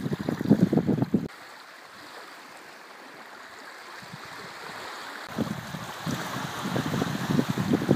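Wind gusting against the phone's microphone over lake water lapping at the shore. About a second in, it cuts to a quieter, steady rush of wind and small waves, and the gusty buffeting comes back past the five-second mark.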